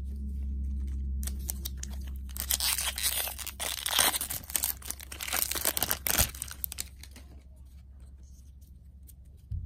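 Foil wrapper of a Magic: The Gathering booster pack torn open and crinkled by hand: a dense run of crackling that starts a little over a second in, lasts about five seconds, then dies down to faint handling noise.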